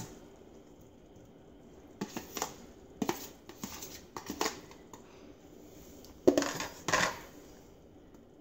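Chopped tomato tipped from a plastic container into a small stainless steel saucepan of sauce: a run of light taps and clinks against the pan from about two to five seconds in, then a spatula scraping and clattering in the pan twice near the end.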